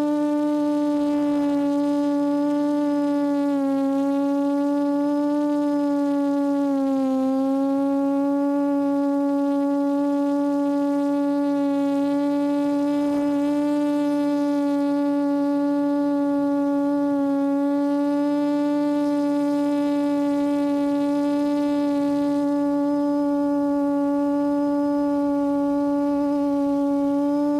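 Quadcopter's four brushless motors and 8-inch propellers in a steady hover, a loud even hum with a slight pitch dip twice early on.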